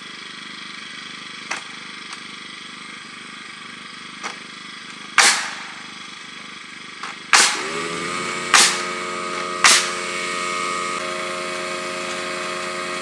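A pneumatic nail gun fires four loud shots about a second apart, nailing framing lumber, with a couple of fainter clicks before them. At the second shot a motor starts, rises in pitch and then runs steadily, like an air compressor kicking on to refill.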